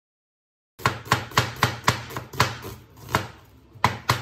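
A chef's knife slicing an onion on a plastic cutting board: sharp knocks of the blade against the board, about three to four a second. The knocks start suddenly about a second in and pause briefly near the end before resuming.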